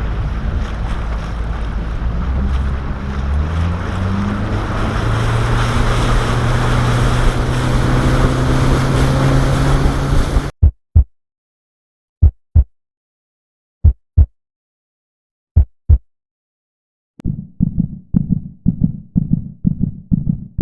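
Outboard motor running as the boat gets under way, its pitch rising as it speeds up, with wind buffeting the microphone. About ten seconds in it cuts to silence broken by four double thumps like a heartbeat, and near the end a pulsing electronic music beat starts.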